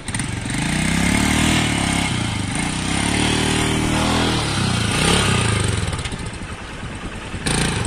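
Royal Enfield Himalayan's single-cylinder engine revved while the bike stands, its pitch rising and falling about three times before dropping back toward idle. A short rushing noise comes just before the end.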